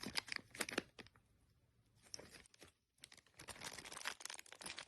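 Plastic packaging bag crinkling and rustling as it is handled. There are sharp crackles in the first second and again around two seconds in, then near-continuous crinkling from about three seconds in.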